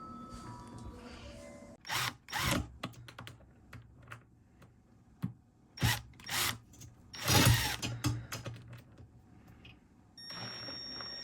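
Power drill driving screws in several short bursts, fastening a cabinet's sliding bracket in place.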